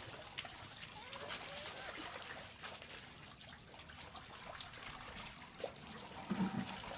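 Faint steady trickle of running water. A brief faint voice sounds near the end.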